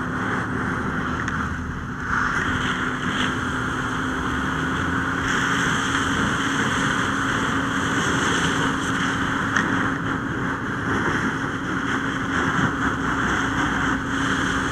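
A burning car being hosed down: a steady rushing spray, over a constant engine drone. The spray gets louder about two seconds in and again about five seconds in.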